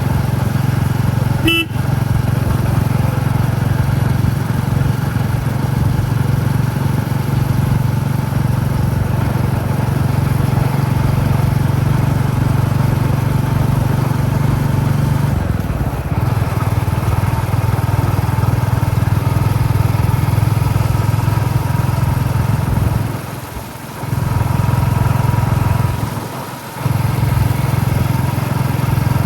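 Royal Enfield Classic 350's single-cylinder engine running steadily under way, with its low exhaust thump. A short beep comes about one and a half seconds in, and the engine sound dips briefly twice near the end.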